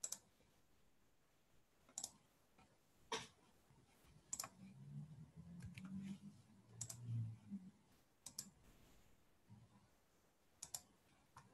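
Sparse, irregular clicking at a computer: about seven sharp clicks over near silence. A faint low murmur comes in the middle.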